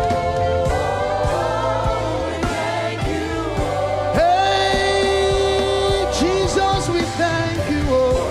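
Gospel worship song: voices singing over a band with a steady bass, one long held note about halfway through.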